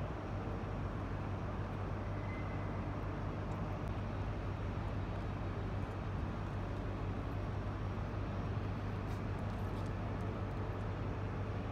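InterCity 225 train, a Class 82 driving van trailer leading and a Class 91 electric locomotive pushing at the rear, arriving slowly at the platform: a steady low hum over an even rumble.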